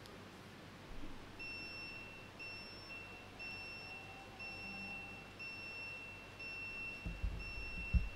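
Electronic beeping: a high, steady tone repeating about once a second. A few low thumps come near the end.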